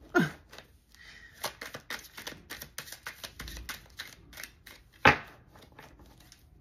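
Tarot cards being shuffled by hand: a rapid, uneven patter of card clicks, with one louder snap about five seconds in.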